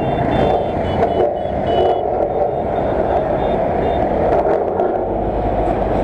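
Vehicle engines running at close range in traffic, a steady dense rumble, with short high-pitched tones repeating several times in the first couple of seconds.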